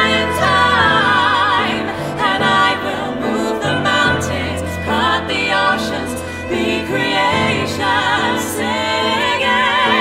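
Women's voices singing together in harmony with a wavering vibrato, over a bowed cello holding long low notes that change every couple of seconds.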